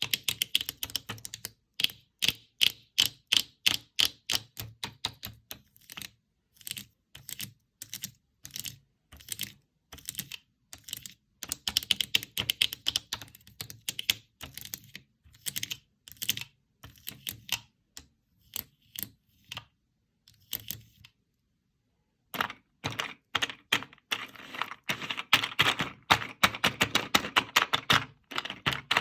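Fingers rapidly tapping and pressing the parts of a handmade paper fidget board: a stream of light clicks and papery taps like typing. The taps stop briefly about two-thirds through, then come thicker near the end.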